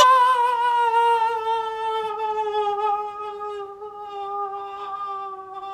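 A voice humming one long note that wavers briefly at the start, then holds, sliding slowly down in pitch as it fades away.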